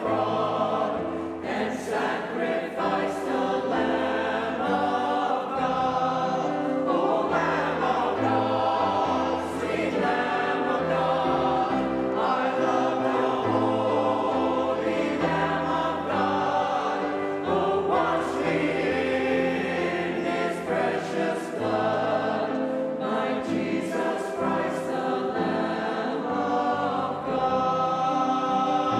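Church choir singing gospel-style worship music with accompaniment, held chords changing every second or two.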